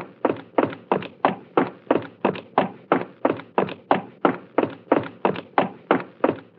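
Footsteps at a quick, even pace of about three steps a second, each step a short, sharp thunk.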